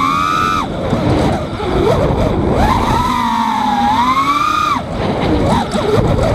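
Brushless motors of a 5-inch FPV quadcopter (EMAX 2205 2300kv on 5x4x4 props) whining with throttle, the pitch sweeping up and down. About a second in, and again near the end, the whine breaks into a jumbled, warbling chirping as the quad stops sharply and reverses under high throttle; the pilot wonders whether this is propwash oscillation from the tune.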